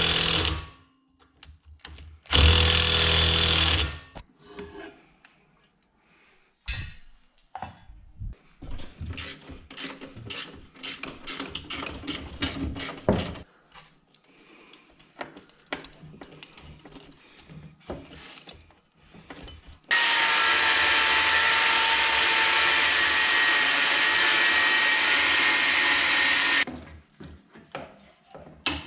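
Workshop tool work: two short loud bursts of a power tool, a run of clicks and taps, then a power tool running steadily for about six seconds before it stops suddenly.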